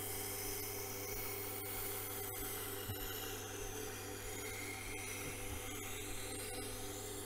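A Tormek wet grinder's motor runs with a steady low hum while a kitchen knife held in a jig is ground against the turning wheel, giving a continuous scraping hiss of steel on the wheel.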